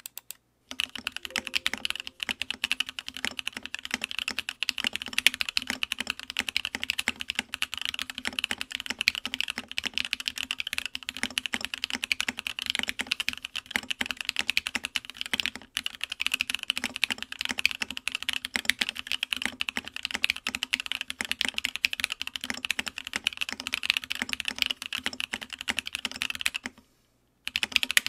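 Continuous fast typing on an Odin Gaming Nova65 gasket-mount 65% custom mechanical keyboard with an aluminum plate and Moyu Studio Queen switches: a rapid, unbroken run of keystrokes that starts just under a second in and breaks off briefly about a second and a half before the end.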